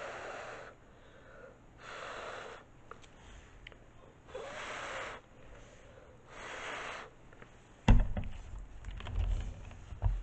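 Four short puffs of breath, about two seconds apart, as wet acrylic pour paint is blown outward by mouth into a bloom. About eight seconds in, a loud knock and a couple of seconds of low thumping as the round wooden board is handled.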